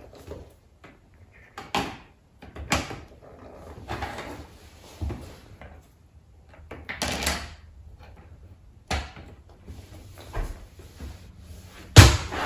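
Plastic toy train track pieces clattering and knocking against a wooden floor as they are handled and fitted together, in scattered bursts, with a louder knock near the end.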